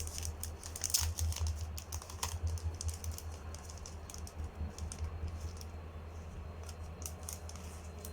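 Sheet of craft paper being handled, giving scattered light clicks and rustles that thin out after the first few seconds, over a steady low hum.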